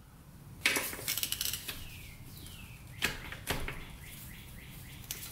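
Wrench working a bolt on the underside of a dirt bike's engine: sharp metal clinks about two-thirds of a second in and again about three seconds in, with a run of quick rasping strokes between and after them.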